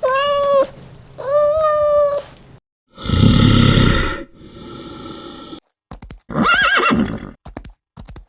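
A string of different animal calls cut one after another: two steady, drawn-out calls of about a second each, then a loud rough call, then a wavering call, with short knocks near the end.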